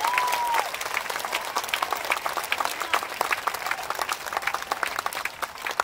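Large crowd applauding, a dense patter of many hands clapping, with a short cheer at the very start.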